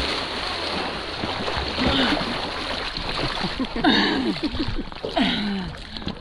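Water splashing close by, a sharp splash at the start followed by continuous splashing and sloshing, with faint voices mixed in.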